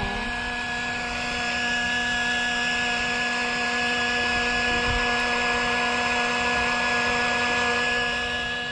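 Toy bubble machine running, its small fan motor giving a steady whine with several even tones that fades a little near the end.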